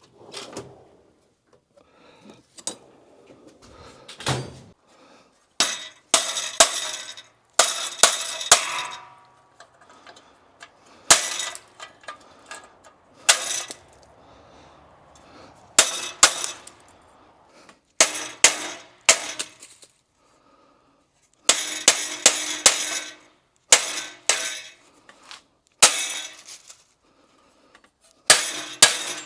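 Sharp metallic clanks and knocks of metal parts and tools being handled and struck, coming irregularly in clusters of two to four with short pauses between.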